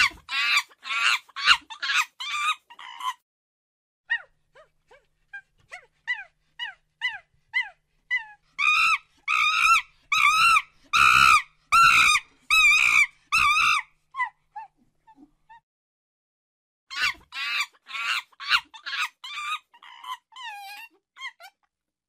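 Monkey calling in rapid runs of short, high-pitched calls, several a second, in three bouts with silent gaps between them; the middle run is the loudest.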